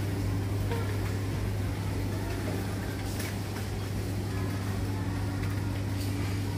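Steady low hum of a supermarket's cooling equipment, with faint voices of other shoppers.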